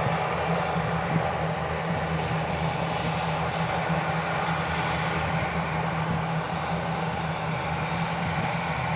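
ATR 72-600's Pratt & Whitney PW127M turboprops and propellers droning at a constant level, with a steady low hum under a broad rushing noise.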